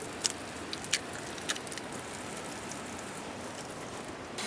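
Sausage sizzling in a pan on a camp stove, a steady hiss with a few light clicks in the first second and a half. Right at the end a louder, brighter sizzle starts as beaten eggs are poured into the hot pan.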